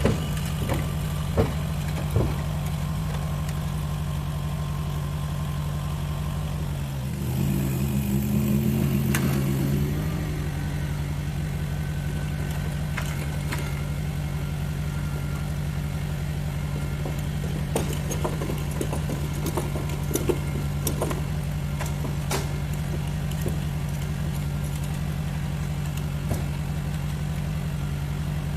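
Mini skid steer's small engine running steadily near idle, picking up for about three seconds around seven seconds in, with scattered sharp metal clanks.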